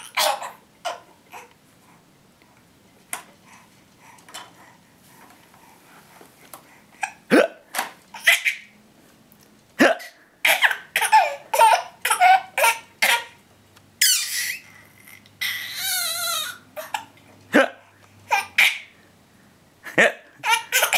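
A young child hiccuping, short sharp hiccups every second or few, then breaking into bursts of laughter over the second half, with one long, wavering stretch of laughter.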